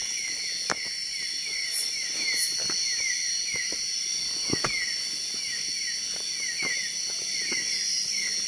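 Night forest insect chorus: steady high-pitched trilling from many insects, with a short falling chirp repeating about three times a second. Scattered light clicks and knocks come through it.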